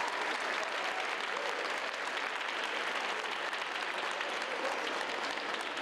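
A crowd applauding, a dense steady clatter of many hands clapping.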